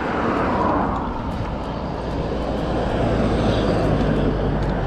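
Steady running noise of a moving vehicle with wind rush, an even rumble and hiss, with a faint low engine hum rising partway through.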